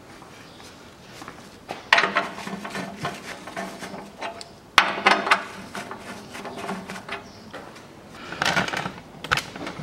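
Socket wrench working the bolts of a Ford Ranger's underbody skid plate: metallic clicking and clinking, with sharp knocks about two and five seconds in and another run of clicks near the end.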